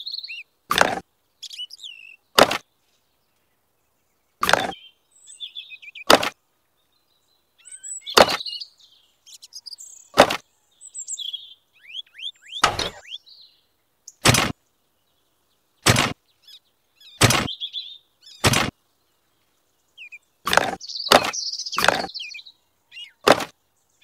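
Sharp clacks and taps of small plastic and wire pieces being picked up and set down, about fifteen separate knocks at uneven intervals, with short bird chirps between them.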